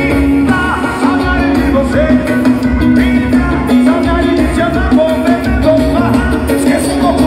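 Loud music with singing and a pulsing bass beat, played through a pickup truck's bed-mounted sound system of Eros Target Bass 3K 18-inch subwoofers and Eros 10-inch mid-bass speakers.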